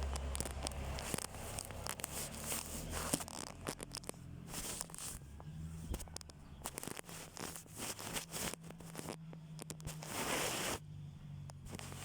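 Rustling and crackling noises with many short clicks, over a faint steady low hum; a louder burst of hiss comes about nine seconds in and stops abruptly near eleven seconds.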